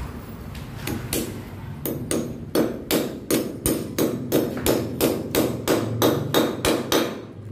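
Hammer driving a metal pipe strap onto a concrete beam to fix PVC electrical conduit: a few scattered blows, then a steady run of about three sharp strikes a second that stops just before the end.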